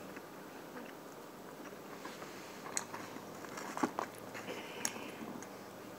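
Quiet chewing and eating sounds from someone eating fried chicken strips. A few short, sharp clicks and smacks come in the second half.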